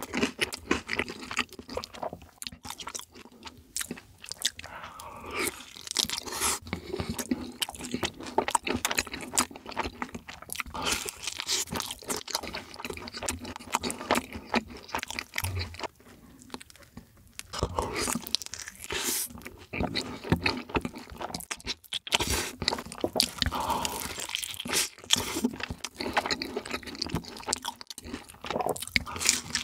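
Close-miked mukbang eating sounds: a man biting, crunching and chewing food in a steady, irregular run of crunches and mouth noises.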